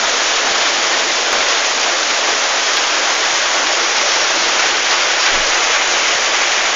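Light rain falling: a steady, even hiss of drops.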